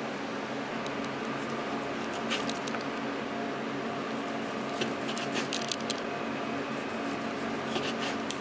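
Kitchen knife slicing through braised pork chashu on a wooden cutting board: clusters of short, wet cutting clicks about two seconds in, around five seconds in and near the end, over a steady mechanical hum.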